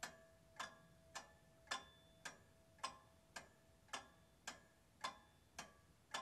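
Faint clock ticking steadily, a little under two ticks a second.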